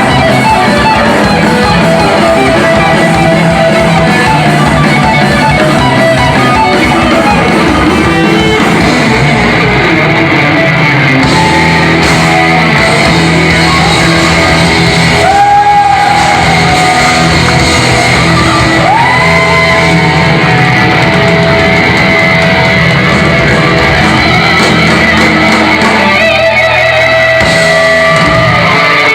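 A heavy metal band playing live in a hall, loud and continuous, with distorted electric guitar and drums. Held notes bend in pitch a couple of times midway through.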